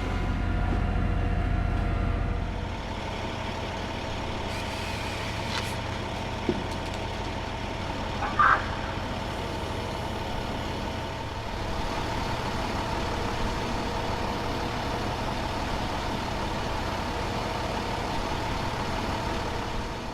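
A heavy truck engine running steadily with a droning hum. A brief high-pitched squeak or chirp cuts in about eight and a half seconds in.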